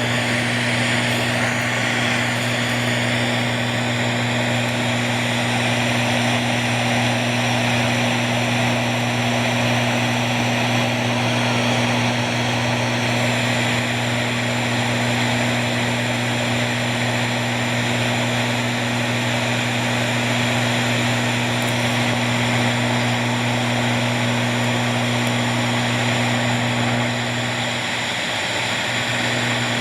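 AM radio hissing with static over a steady hum, tuned to a 670 kHz ultrasonic carrier passed through a frozen copper wire. Faint whistles and tones from frost forming on the wire are buried within the static.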